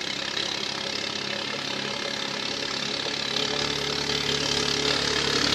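A boat's 6.5 HP Sumo single-cylinder gasoline engine running steadily at speed, growing louder as the boat comes closer.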